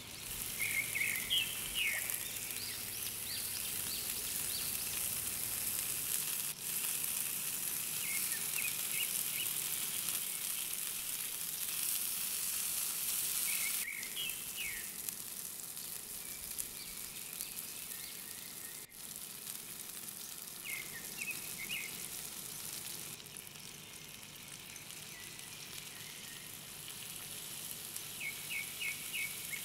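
Chicken tikka skewers sizzling steadily in oil and butter on a hot ridged grill pan. A few short, high chirps come through every several seconds.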